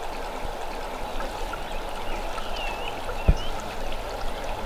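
Steady rushing outdoor noise like a flowing stream. A few short high chirps, like a small bird, come around the middle, and a single low thump about three seconds in.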